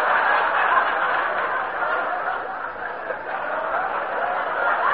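Studio audience laughing: a dense wash of many voices that eases a little through the middle and swells again near the end, heard through the muffled, narrow sound of an old radio broadcast recording.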